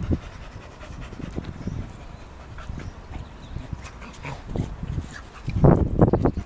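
Staffordshire bull terrier panting, with a louder burst of breaths near the end.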